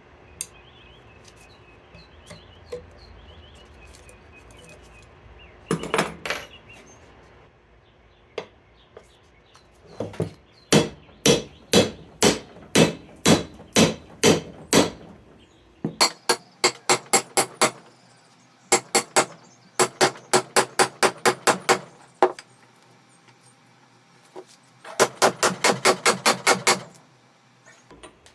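Hammer blows on a Honda Civic steel steering knuckle to knock the ball joint out: a few small clicks, then sharp metallic strikes. Single blows come about a second apart, then fast runs of about four or five blows a second.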